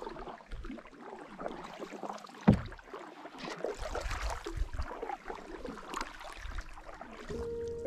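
Canoe paddles dipping and pulling through calm lake water, with irregular splashes and drips, and one sharp knock about two and a half seconds in. Music comes in near the end.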